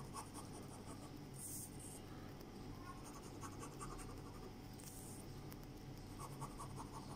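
Ballpoint pen scratching faintly across paper in short zigzag strokes, sketching palm-frond leaflets. There are slightly louder scratches about one and a half seconds and five seconds in, and a quick run of small strokes near the end.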